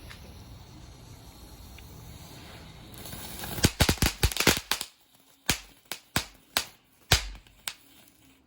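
Sky Bacon novelty firework going off: a steady hiss, then about three seconds in a rapid cluster of loud firecracker pops, followed by a string of separate pops about half a second apart that stop near the end.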